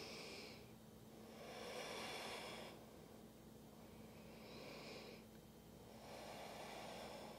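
A person breathing slowly and faintly, four breaths in and out of about a second each, spaced by short pauses.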